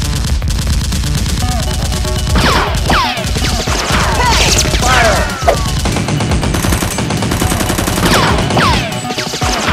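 Rapid-fire gunfire sound effects dubbed over a Nerf blaster fight, a fast run of shots through most of the stretch. Several falling whistles cut through the shots in the middle and again near the end.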